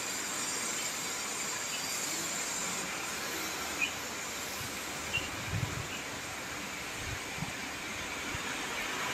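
Steady rushing noise with a few faint clicks and some short low thumps from about five seconds in.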